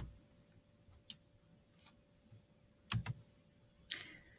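A few short, sharp computer clicks from a mouse or keyboard being used to advance the slides: one right at the start, a softer one about a second in, a quick pair about three seconds in, and one near the end, over a faint steady hum.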